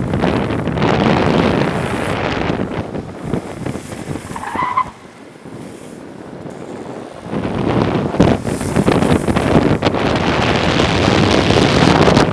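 Rushing wind and road noise of a longboard running fast downhill on asphalt, with a brief squeal of the board's urethane wheels sliding about four and a half seconds in. The rush drops quieter for a couple of seconds, then builds louder again.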